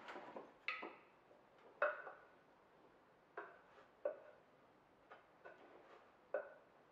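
Irregular knocks and clacks of small wooden blocks being handled and set against one another, about eight in a few seconds, each with a short hollow ring.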